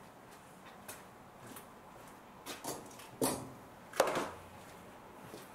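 A few scattered small clicks and knocks of handling, the loudest about three and four seconds in.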